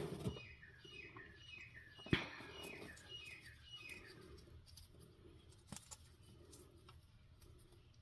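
Metal clicks from a wrench turning out an oil pressure switch: a sharp click at the start and another about two seconds in, with a few faint clicks later. Behind them a bird chirps a quick run of short falling notes over the first few seconds.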